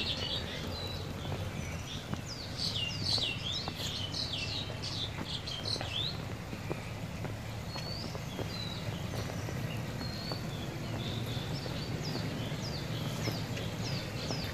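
Small birds chirping again and again, busiest in the first six seconds and sparser after, over the steady low hum of a Toyota Land Cruiser's 4.7-litre V8 moving slowly.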